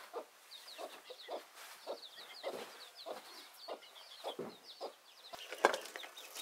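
Faint clucking of chickens: short low calls every half second or so, with a run of quick high chirps through the first few seconds.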